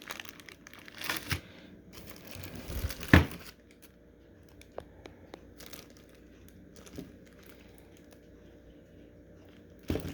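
Packaging crinkling and rustling as accessories are handled out of a box, with one sharp knock about three seconds in. After that, mostly quiet with a few faint clicks.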